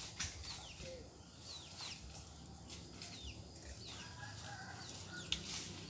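Small birds chirping, with short, high, falling chirps repeated throughout, and a chicken giving a drawn-out call about four seconds in. A few sharp taps or rustles break in, the loudest near the end.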